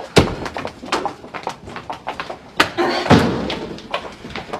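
Several people walking out of a small room, their footsteps clicking on a hard floor, with a door banging twice, just after the start and about two and a half seconds in.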